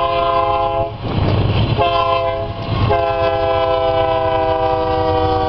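Freight locomotive's air horn sounding a chord of several notes in the highway grade-crossing pattern: a long blast that ends about a second in, a short blast, then a final long blast held on past the end. The train's low rumble runs underneath.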